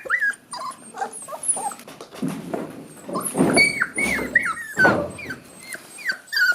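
Puppies whimpering and squealing: many short, high-pitched cries that fall in pitch, repeating throughout, with rustling from the pups being handled.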